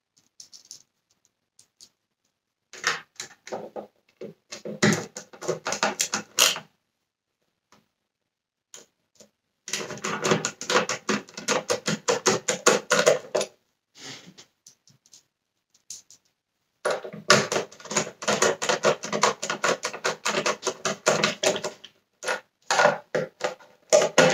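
Hand screwdriver driving screws into a vacuum cleaner's plastic housing: four runs of rapid clicking, a few seconds each, with pauses between.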